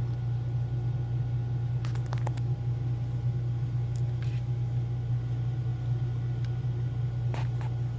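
A steady low hum with a few faint, small clicks about two seconds in and again near the end.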